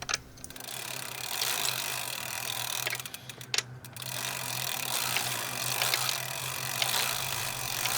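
Rapid ratcheting clicks from a ratchet mechanism as a bicycle pedal is threaded on and tightened, pausing briefly about three and a half seconds in.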